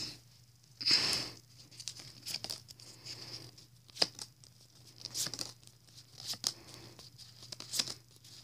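Pokémon trading cards and foil booster-pack wrapping being handled: irregular crinkling and rustling with a few light snaps, the loudest rustle about a second in.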